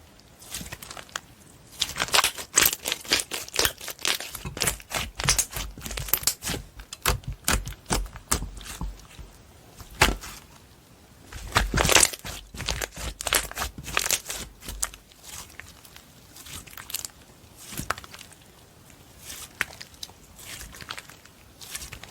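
Slime being squished and stretched by hand, giving a dense run of small crackles and pops that thins out after about fifteen seconds.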